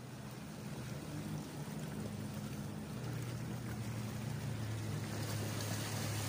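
Small sea waves washing and splashing against shore rocks, over a steady low hum of a distant motorboat engine.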